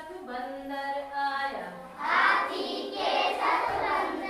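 Group of children imitating animal sounds with their voices. They hold long pitched calls together for the first second and a half, then break into louder, rougher cries from about two seconds in.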